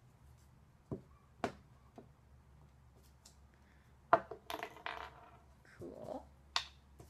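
Glue stick and paper being handled on a tabletop: a few sharp plastic clicks and taps, the loudest about four seconds in, with brief rustling scrapes of paper in between.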